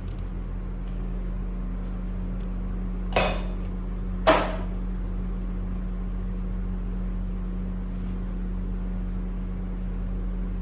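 A steady low hum, with two sharp knocks about a second apart, a third of the way in.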